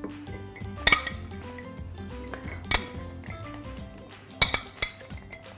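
A metal spoon clinking against a glass bowl and a ceramic cup as soaked raw almonds are scooped out: about four sharp clinks a second or two apart. Soft background music plays underneath.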